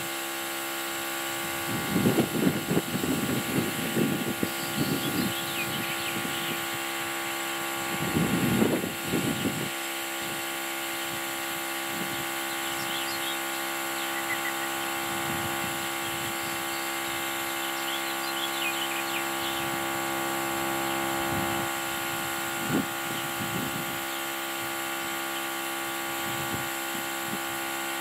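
Portable Viking tire inflator's small electric compressor running steadily while pumping up a tire, a constant hum with a high whine. Two louder, irregular rumbling bursts come over it about two and eight seconds in, and a single knock near the end.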